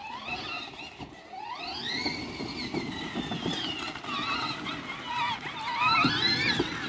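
Huffy Torex 24-volt electric ride-on ATV's motor and gearbox whining. The pitch climbs about a second and a half in, wavers, then climbs again near the end.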